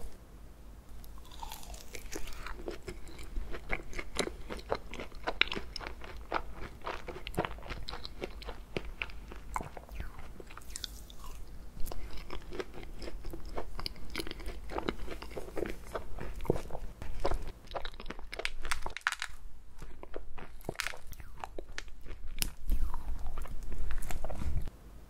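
Close-miked eating of ice cream cake: crunching and chewing with many small crisp crackles. Near the end a metal fork digs into the frozen cake, the loudest part.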